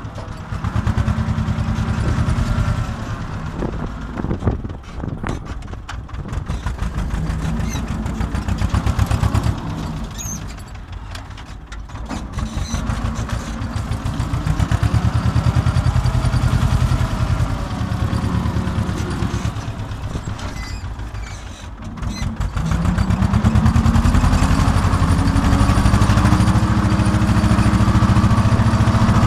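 Tractor engine running continuously. Its note sags twice, then picks up and holds steady and higher for the last few seconds.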